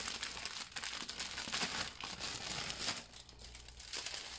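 Small plastic bags of diamond painting drills crinkling and rustling as they are handled, the crinkling thinning to a few scattered crackles about three seconds in.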